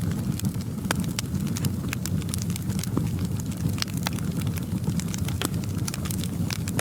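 Wood fire crackling in a fireplace: a steady low rumble of flames with frequent, irregular sharp pops and snaps.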